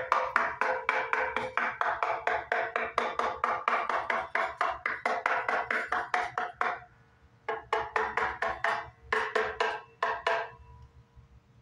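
A screwdriver tapping rapidly, several taps a second, around an unfinished solid-wood Explorer-style guitar body. Each tap rings with the body's own resonant pitches. This is a tap-tone test of how well the wood and its glue joints resonate. It pauses briefly twice, and after the last taps a faint ringing tone lingers.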